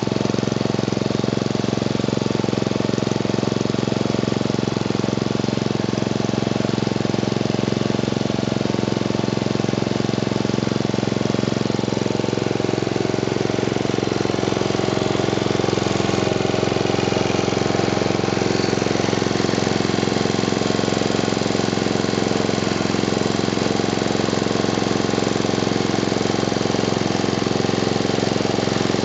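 Honda GC160 single-cylinder four-stroke engine running steadily and evenly, with no load on its bare output shaft.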